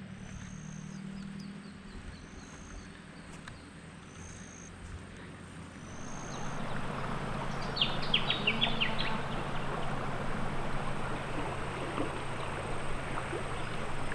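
Outdoor ambience of a swollen creek: a faint low hum at first, then from about six seconds in a steady rush of flowing water, with a short burst of bird twittering about eight seconds in.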